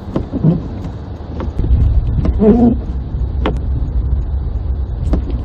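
Car driving on snow-covered streets, heard from inside the cabin: a steady low road and engine rumble that swells louder from about two seconds in, with a few short sharp clicks.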